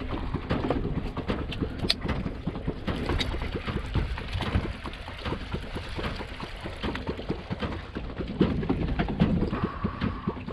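Wind buffeting the microphone and water lapping against an aluminium fishing boat's hull, with scattered irregular clicks and knocks.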